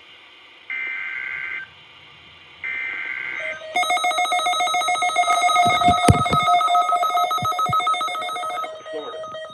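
Emergency Alert System tones. Two short bursts of shrill, chirping data tones (the SAME header that encodes the alert) are followed by a loud, rapidly pulsing buzzy alert tone lasting about five seconds.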